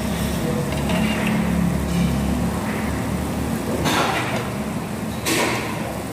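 Meat sizzling on a tabletop grill pan over a steady low rumble, with two short hissing bursts about four and five seconds in as pieces are turned with tongs.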